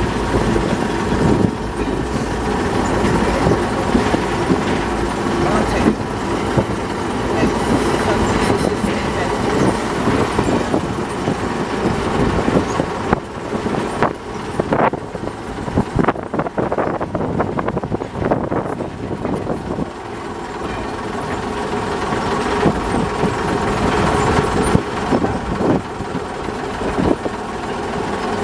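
Small diesel shunting locomotive's engine running as it rolls slowly along the track, with a few sharp knocks from the wheels and rails about halfway. The engine dips a little past halfway, then builds again near the end.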